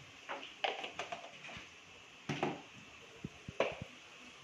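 A metal spatula scraping and knocking against a metal kadai while vegetables are stir-fried, in several irregular strokes.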